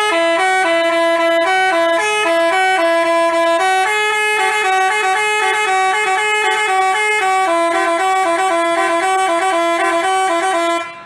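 Telolet basuri bus horn playing a fast tune, two horn tones sounding together and stepping from note to note, cutting off near the end.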